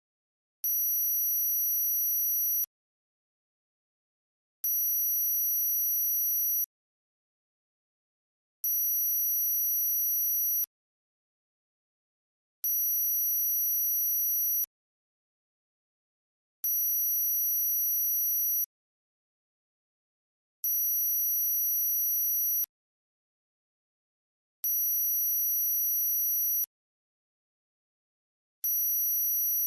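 Synthetic high-pitched tone of tinnitus-masking sound therapy, pulsing on for about two seconds and off for two, eight times over. Each pulse is a steady, very high pure tone with a weaker, lower tone beneath it.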